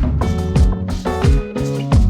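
Background music: an upbeat instrumental track with a steady drum beat, kick drum about twice a second.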